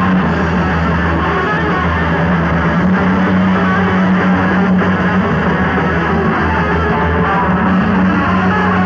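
Metal band playing live: distorted electric guitars over bass guitar and drums, loud and dense with no break.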